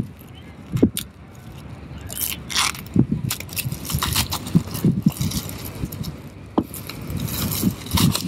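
Clear plastic shrink-wrap being peeled and pulled off a laptop box, crinkling and crackling in irregular bursts, with a few dull thumps.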